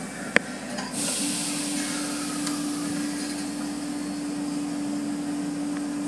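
Automatic car wash spraying water over the car, heard from inside the cabin: a steady hiss of spray on the glass and body that starts about a second in, with a steady machine hum underneath. A sharp click comes just before the spray starts.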